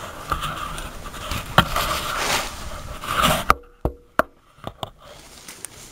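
Camera handling noise: rubbing and scraping, then a few sharp knocks about three and a half seconds in as the camera is set down.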